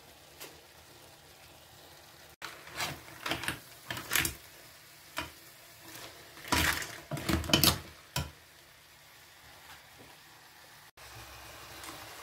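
Wooden spatula stirring and turning blue swimming crab pieces in a frying pan, crab shells scraping and clattering against the pan in a run of short strokes, the loudest a little past the middle. A low sizzle runs underneath.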